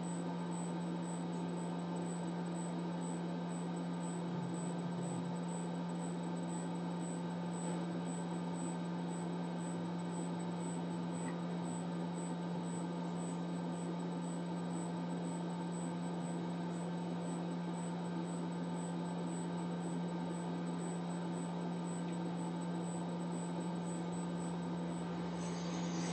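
Steady low electrical hum, one unchanging tone with fainter overtones above it.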